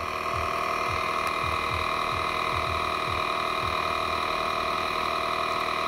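DeWalt 20V cordless tire inflator (DCC020I) running steadily, its small compressor motor making a constant, even hum as it pumps air into a tractor's rear tire that had been sitting low.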